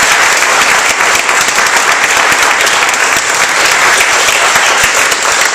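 Audience applauding steadily after a short talk, a dense even patter of many hands clapping in a large hall.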